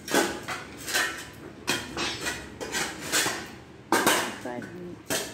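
A long steel digging bar driven by hand into concrete rubble and packed soil, striking about every second with sharp metallic clanks and scrapes as it breaks up the ground for a foundation hole.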